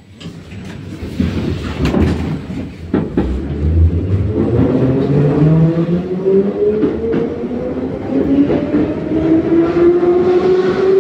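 Metro train pulling away from a station, heard from inside the car: a few clunks, then the traction motors whine steadily higher in pitch as the train accelerates, over rising wheel and track noise.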